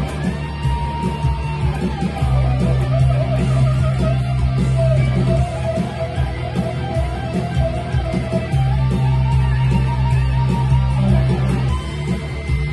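Electric guitar playing a lead line of single notes with string bends and vibrato, over a sustained low backing.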